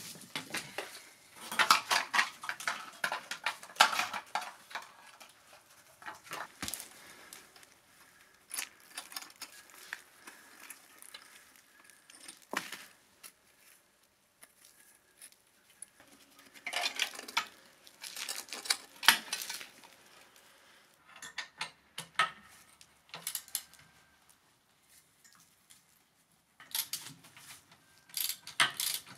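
Rusty steel motorcycle parts and hand tools clanking and clinking as a rusted mini chopper is taken apart by hand. The clatter comes in three spells, near the start, about two-thirds of the way in and at the end, with scattered light ticks between.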